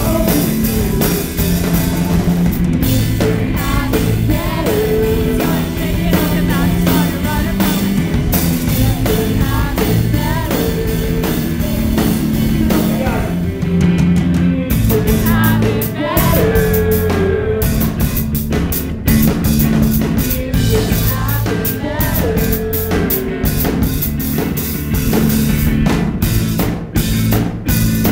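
Live rock band playing loud: a singer over a drum kit and electric guitar.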